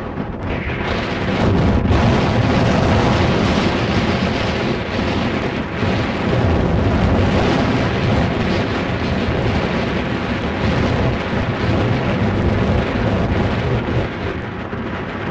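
Strong wind buffeting the camera microphone: a loud, continuous rumbling noise that grows about a second in and then swells and eases.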